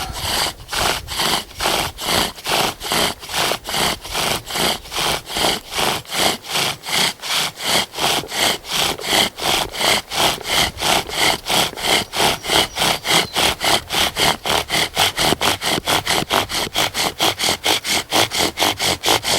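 Wooden spindle of a friction-fire drill grinding against its hearth board. It is worked in quick, even back-and-forth strokes, about three to four a second, each with a dry squeaking scrape, as he tries to raise an ember.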